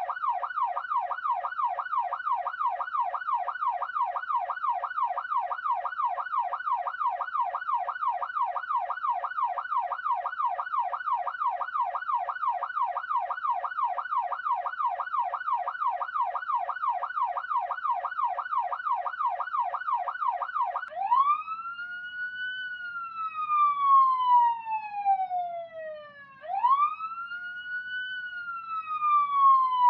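Police siren on a fast yelp, its pitch sweeping up and down about three times a second. About two-thirds of the way through it switches to a slow wail: two long cycles, each rising sharply and then falling over about five seconds.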